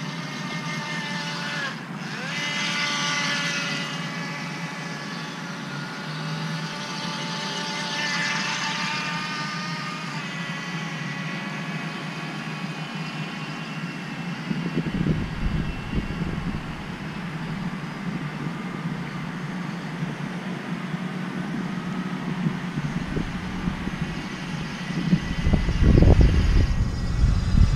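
Small electric RC speedboat's motor whining as it runs on the water, its pitch dipping briefly about two seconds in, with hissing spray swelling twice in the first ten seconds as it passes. In the second half wind buffets the microphone in low gusts, loudest near the end.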